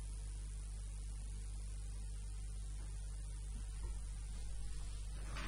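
Steady electrical mains hum with a layer of hiss.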